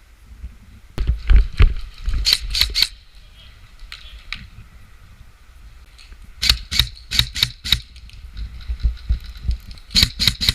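Airsoft guns firing strings of single shots, sharp cracks. An irregular run of about six comes in the first three seconds, about five at roughly four a second in the middle, and a quicker string starts near the end.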